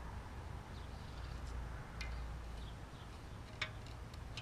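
A few light, sharp clicks of a bore-measuring tool against the Slant 6 engine block's cylinder bore, the loudest a little past halfway, over a low steady rumble.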